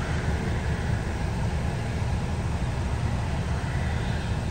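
Airbus A380 taxiing, its four jet engines at taxi power giving a steady, loud rumble with a faint high whine over it.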